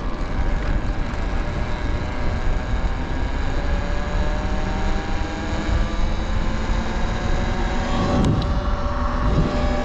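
Talaria Sting R electric dirt bike riding along, wind rumbling on the microphone, with a faint motor whine that slowly rises in pitch as it gathers speed.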